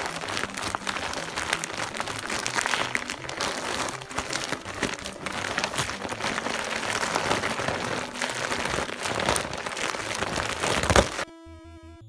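Dense, irregular crackling and crinkling noise for about eleven seconds, ending in one sharp loud crack, after which a short simple electronic melody plays.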